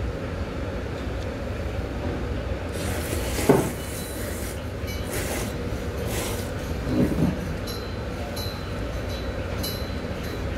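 A person slurping noodles in long, hissing sucking draws over a steady low hum of the room, with a brief louder sound about three and a half seconds in and another about seven seconds in.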